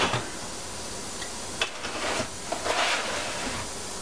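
A few light knocks and rustles of a V6 outboard engine block being handled and set down on a workbench, with a sharp click about one and a half seconds in, over a steady hiss.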